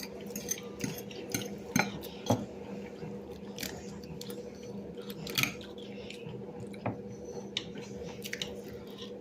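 Cutlery clicking and scraping against a plate while eating, in irregular sharp clinks, with a faint steady hum underneath.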